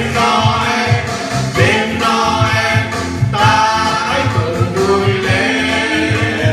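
A Christmas song: voices singing over instrumental backing with a steady bass beat.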